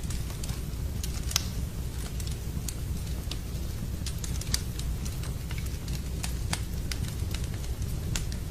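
Wood fire in a fireplace crackling, with sharp irregular pops and snaps over a steady low rumble, mixed with a steady sound of rain.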